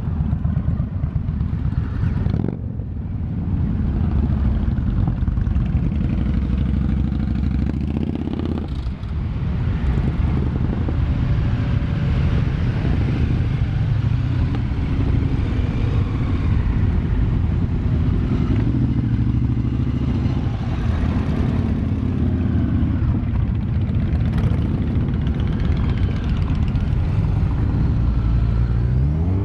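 A column of motorcycles, a mix of cruisers and sport and touring bikes, riding slowly past one after another. Their engines run in a continuous, low-pitched sound that rises and falls a little as each bike passes.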